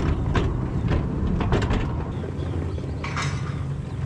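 Narrow-gauge locomotive engine running with a steady low rumble, with several metallic clanks and a short hiss about three seconds in.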